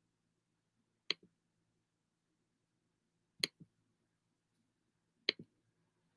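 Three sharp clicks about two seconds apart, each followed by a fainter click, from a computer mouse button being pressed and released.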